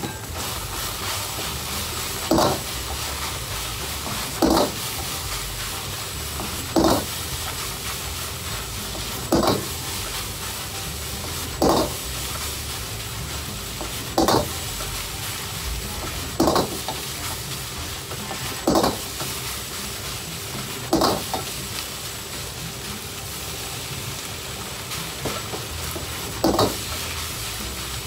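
Fried rice sizzling in a metal wok as a ladle stirs it, the ladle knocking sharply against the wok with a short metallic ring about every two and a half seconds.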